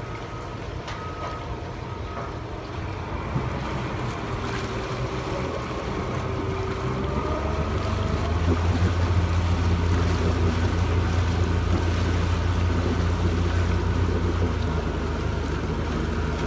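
Twin Mercury Verado 300 outboards running under joystick control, their low hum growing louder about eight seconds in as they push the boat sideways. A few short beeps sound at the start.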